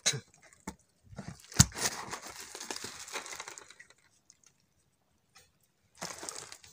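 A sharp knock followed by a couple of seconds of rustling and scraping, then quiet, then another short burst of rustling near the end: handling noise among the catch on the boat's floor.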